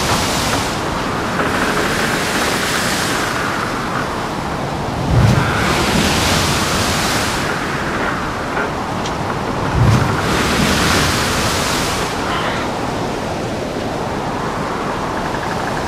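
Stormy sea around a ship: a steady rush of wind and breaking waves. A deep thump comes about five seconds in and again about ten seconds in as a wave hits, each followed by a rising hiss of washing water.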